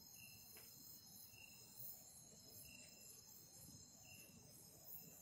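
Faint night insect chorus: crickets trilling steadily and high, with a short chirp repeating four times, about every second and a half.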